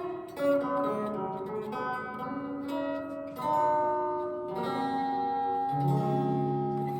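Guitar-like plucked-string music, a melody of sustained ringing notes, played through a newly built spring reverb tank.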